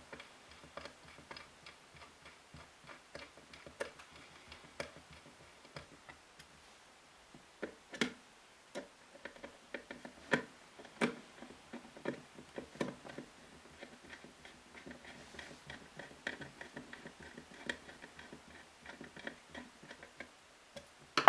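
A string of irregular small clicks and ticks from a Phillips screwdriver turning the screws of a metal battery cover plate, with light knocks as the small metal-cased unit is handled.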